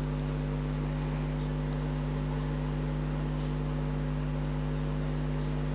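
A steady low electrical hum with a buzzing overtone, unchanging throughout.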